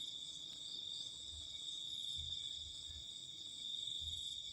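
Insects chirring steadily in a high, continuous buzz, with a few soft low thumps underneath.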